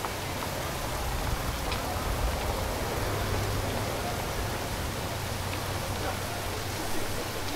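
Steady rain falling, an even hiss, with a low steady hum underneath.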